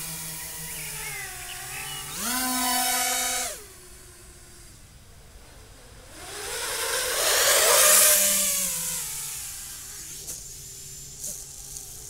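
Martian II FPV racing quadcopter's motors and propellers whining, the pitch rising and falling with the throttle: a sharp step up about two seconds in that drops back a second and a half later. Midway a broad rushing noise swells up, loudest around eight seconds, then fades.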